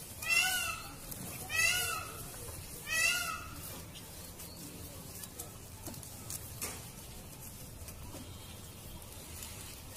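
Indian peafowl calling: three loud, wailing calls about a second and a half apart in the first few seconds, each rising then falling in pitch. After that it is quieter, with a sharp click about two-thirds of the way through.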